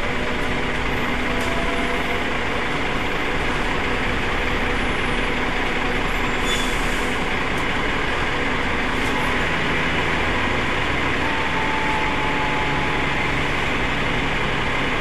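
Cummins ISMe-335 10.8-litre straight-six diesel of a Transbus Trident III double-deck bus running with a steady drone, heard from inside the bus. A brief hiss of air comes about six and a half seconds in.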